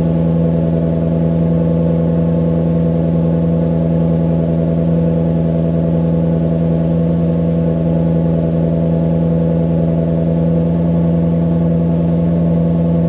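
Maserati GranTurismo Sport's naturally aspirated 4.7-litre V8 running at a steady, unchanging speed, its exhaust giving a loud, even note with no revving.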